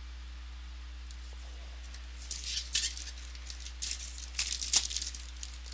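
Trading cards and their packaging being handled: a flurry of crinkling and clicking starting about two seconds in and lasting about three seconds, over a steady electrical hum.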